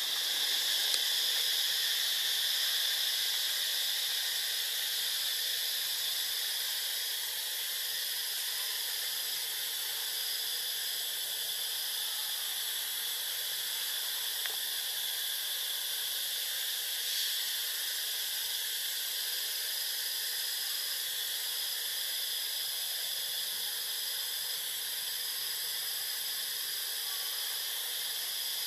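Daytime insect chorus: a steady shrill buzz, with a higher note that keeps breaking off and starting again every second or two.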